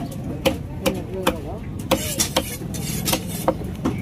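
Heavy broad-bladed fish-cutting knife chopping tripletail fish into chunks on a wooden log block. About ten sharp chops come at two to three a second, each with a brief ring, over a low steady background rumble.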